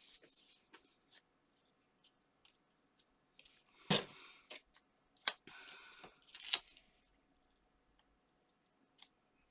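Paper and card being handled on a craft table: scattered rustles and small clicks, with a sharp tap about four seconds in and another about six and a half seconds in.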